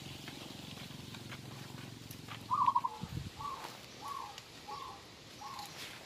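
A dove calling: a loud rolling note, then four shorter cooing notes about half a second apart. A faint low drone dies away during the first two seconds.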